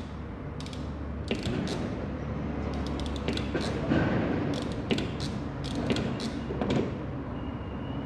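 Hands working on a car-stereo wiring loom, stripping and twisting wire ends: irregular small clicks, snips and rustles over a steady low hum.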